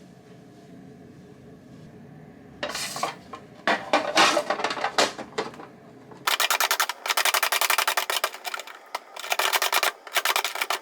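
Close-up handling sounds: a few irregular knocks and rubs, then runs of fast, evenly spaced scraping or tapping strokes in several bursts from about six seconds in.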